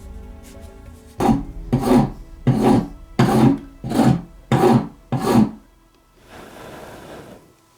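Hand abrading of the old mallet: seven quick, even scraping strokes, then one slower, softer stroke near the end.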